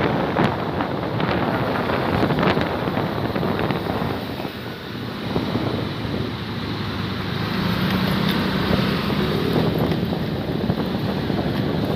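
Wind buffeting the microphone over engine and road noise from a motorcycle riding through city traffic. The noise eases briefly about four seconds in, and a steady low engine hum comes in about eight seconds in.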